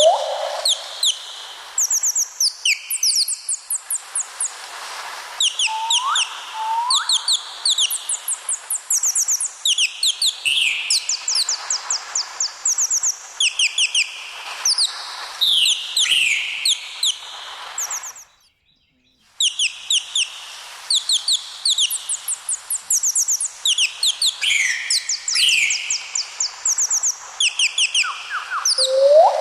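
Parrots chirping and twittering in quick, overlapping high calls and short trills, with a few sweeping whistles; the calls cut out suddenly for about a second partway through, then resume.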